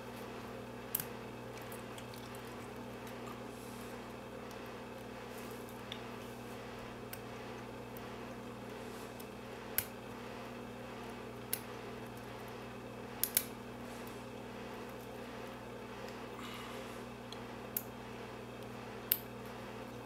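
Scattered small, sharp metallic clicks, about seven in all with two close together, from a lock pick and tension wrench working the pins in the keyway of a brass LSDA pin-tumbler padlock. A steady low hum runs under them.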